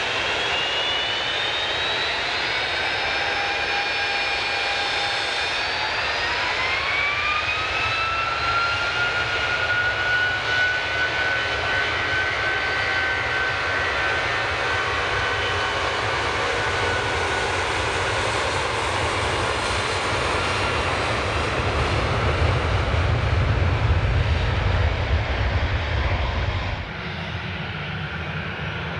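Jet airliner's turbofan engines spooling up to takeoff power: several whining tones climb in pitch over the first eight seconds or so and then hold, over steady jet noise. A deep rumble builds as the takeoff run goes on, then the sound cuts abruptly to a quieter engine noise near the end.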